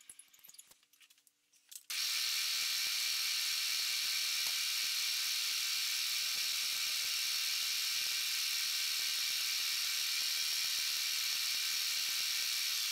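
Milling machine spindle running an end mill at about 750 RPM: a steady high whine and hiss that starts suddenly about two seconds in and cuts off suddenly near the end.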